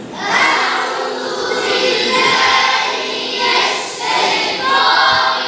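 A group of voices reciting the Quran aloud together in unison, chanted in short phrases.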